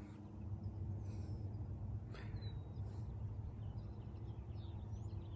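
Faint bird chirps: a few short, high whistled notes, some falling in pitch, heard a handful of times over a low steady rumble.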